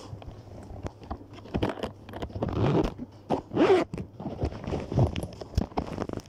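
Close rustling and scraping of cloth and handling noise right at the microphone, with many small irregular clicks. A louder swish comes a little past the middle.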